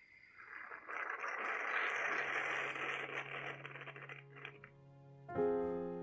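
Small stovetop espresso-style moka coffee maker hissing and sputtering as the last of the water is forced up through the coffee as steam, swelling and then dying away. About five seconds in a piano chord starts.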